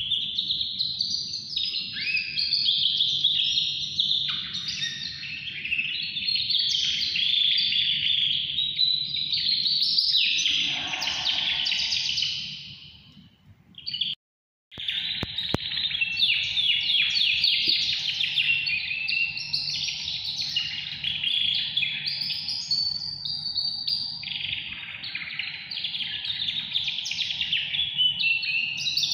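Caged yellow songbird singing a long, rapid warbling song full of trills. It breaks off briefly about halfway through and then starts again.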